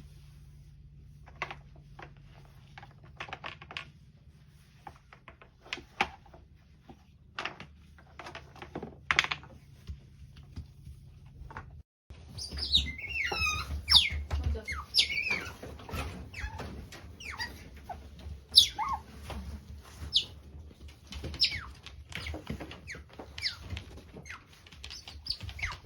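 Pet otters chirping and squeaking in short high calls, mixed with small clicks and knocks. About halfway through the calls get busier, with quick falling chirps.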